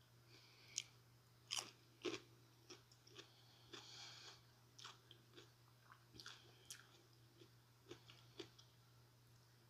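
Someone biting and chewing raw cucumber slices, crisp crunching. A few sharp crunches in the first two seconds, then quieter, scattered chewing clicks.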